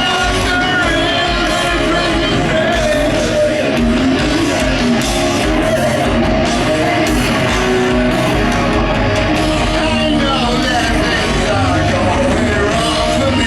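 Heavy metal band playing live at full volume, with distorted electric guitar, bass and drums under a wavering, pitch-bending sung lead line.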